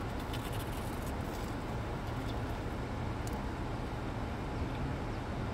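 Steady low hum of a car's engine and air conditioning heard inside the cabin, with a few faint crunches as someone chews a bite of panko-crusted corn dog.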